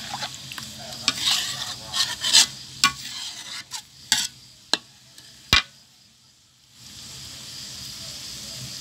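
A metal turner scrapes and taps against a metal wok as thick coconut cream is stir-fried with red curry paste, with several sharp clanks in the first five or six seconds. After a brief lull, the coconut cream sizzles steadily in the hot pan.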